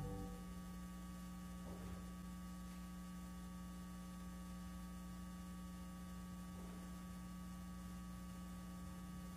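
A steady low electrical hum, mains-type, left as the music fades out at the very start.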